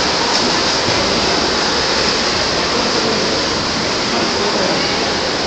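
Steady splashing and churning of pool water as swimmers kick along on foam pool noodles, a continuous wash of noise with no distinct splashes standing out.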